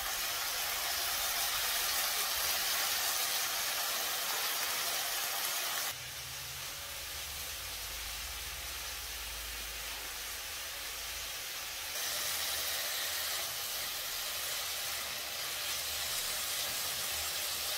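Pumpkin flowers with diced potato and pointed gourd sizzling in oil in a kadai, a steady hiss. It drops a little in level about six seconds in and comes back up about six seconds later.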